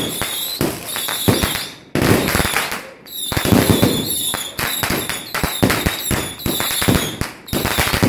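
Many fireworks and firecrackers going off at once: rapid, overlapping bangs and crackling, with short lulls about two and three seconds in.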